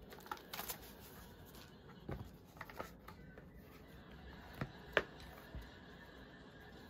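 An iPad and a new folio case being handled on a table: a few soft clicks and taps, with light rustling of foam wrapping, as the tablet is fitted into the case and its cover moved.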